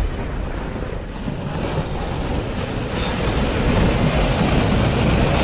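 Flash floodwater rushing, a steady noisy rush with wind buffeting the microphone, growing a little louder toward the end.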